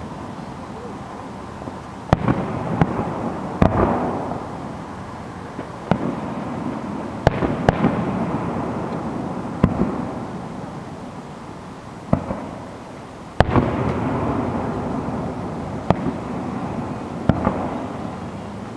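Aerial firework shells bursting, about a dozen sharp bangs every second or two, each followed by a long rolling echo.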